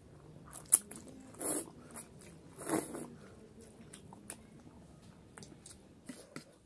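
Close-up eating sounds of instant masala noodles being slurped and chewed: two short slurps, about a second and a half and nearly three seconds in, among many small wet mouth clicks. A single sharp click, the loudest sound, comes about three-quarters of a second in.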